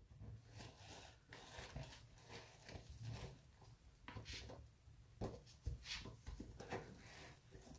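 Faint, irregular rustling and light taps from nitrile-gloved hands handling leather dress shoes and their shoe trees, with a couple of sharper clicks about five seconds in.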